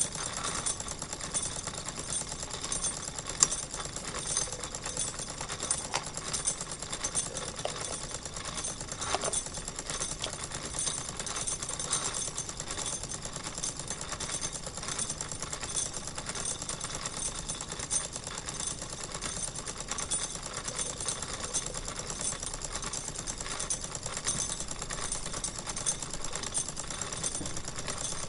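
Wilesco toy live-steam engine running steadily, purring with a fast, even mechanical clatter. There is a sharper click about three and a half seconds in.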